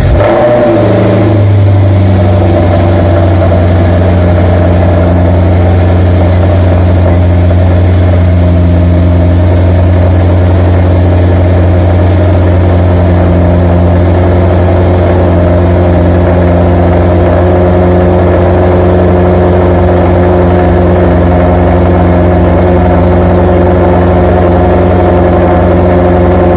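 2008 Maserati GranTurismo's V8 catching on a cold start. A brief flare settles within about two seconds into a loud, steady cold fast idle at the exhaust.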